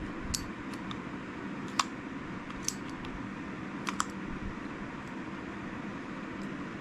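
Scattered small clicks and taps, about half a dozen, from a Zebco 33 spincast reel's parts being handled and fitted together during reassembly, over a steady low background hum.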